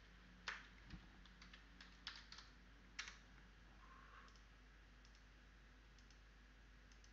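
Faint computer keyboard taps and mouse clicks, a handful of scattered single clicks mostly in the first three seconds.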